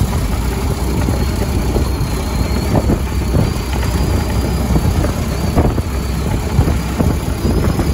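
1910 Ford Model T touring car on the move: its four-cylinder flathead engine running steadily under a low rumble of road noise, with scattered short rattles and knocks.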